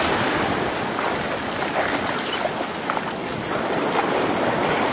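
Surf washing through shallow water in a steady rush of foam, with wind on the microphone.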